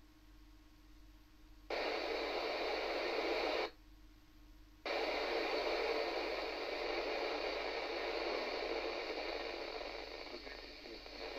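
Yaesu VHF transceiver receiving the ISS downlink on 143.625 MHz FM, its speaker giving FM static hiss as the squelch opens on a weak carrier with no voice. A burst of about two seconds starts about two seconds in and cuts off. After a short gap the hiss comes back and runs on, slowly fading toward the end.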